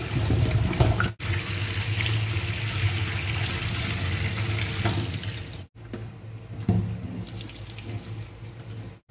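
Cooking water draining from a pot of cooked rice, pouring in a steady stream into a stainless steel sink. About five and a half seconds in the stream breaks off, and a quieter trickle drains on as the pot stays tilted against its lid.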